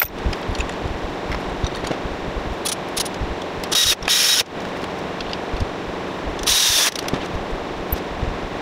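Hand work on metal in a car's engine bay: small clinks and taps of tools on metal over a steady hiss, broken by three short, loud bursts of hiss, two together about four seconds in and one shortly before seven seconds.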